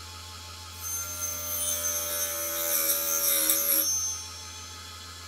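Mini hobby lathe's small electric motor running steadily with its saw blade fitted; from about one to four seconds in the blade cuts through a small wooden piece, a louder hissing, high-pitched ringing cut over the motor hum.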